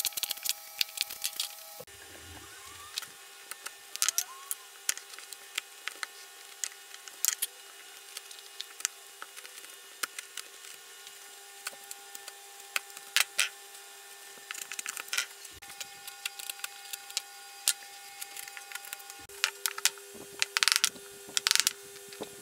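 Hand wood chisel paring and splitting waste from a CNC-carved Kauri pine panel during clean-up: irregular sharp cracks and scrapes as chips break away, over a faint steady hum.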